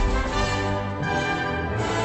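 Orchestral theme music with brass under the opening titles of a TV programme, playing held chords that change about a second in and again near the end.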